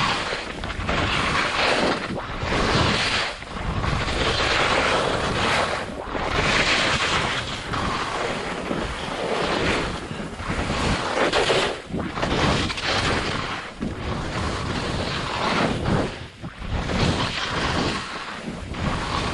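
Skis turning through soft snow: a rushing hiss that swells and drops with each turn, about once every one to two seconds, with wind buffeting the microphone.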